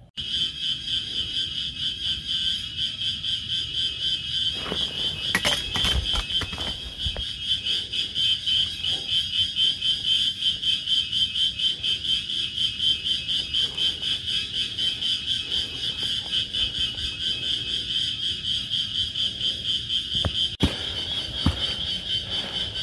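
Loud, steady, high-pitched chorus of forest insects calling at dusk, pulsing about three to four times a second. A few knocks and rustles from footsteps on the trail come about five to seven seconds in.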